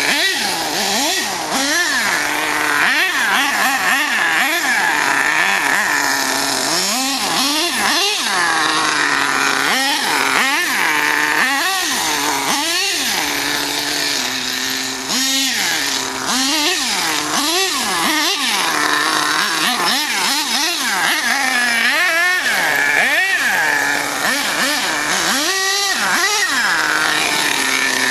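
HPI Savage X RC monster truck's K5.9 nitro engine running hard, its high buzzing pitch climbing and dropping again and again as the throttle is blipped and released while it drives.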